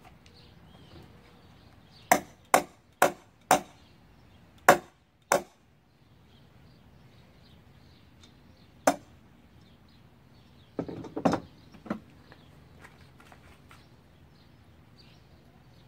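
A metal wrench knocking on a wooden stair stringer: six sharp blows in quick succession, one more a few seconds later, then a short cluster of knocks.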